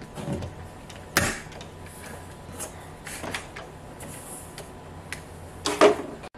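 Knocks and bumps of hands working at a wall fitting behind a wooden tabletop: a sharp knock about a second in, a few softer taps, and a louder clatter near the end.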